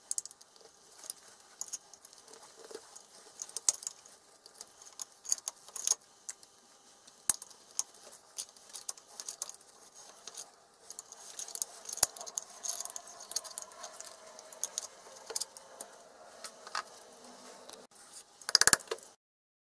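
Hand tools and small metal parts clicking and clinking against the sensor's metal housing as it is handled and unscrewed: irregular small clicks and light rattles, with a louder burst of clatter near the end.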